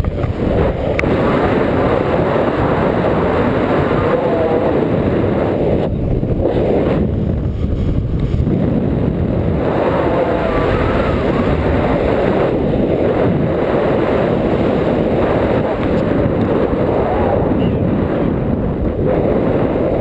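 Loud, steady wind noise from the airflow of a paraglider in flight buffeting the camera's microphone.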